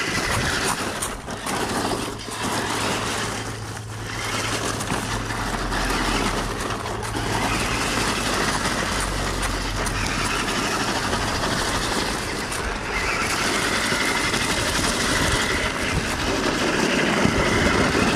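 Tamiya Juggernaut 2 RC monster truck driving on loose gravel: its stock electric motors and geartrain run while the big tyres crunch over the stones. A faint steady whine joins in near the end.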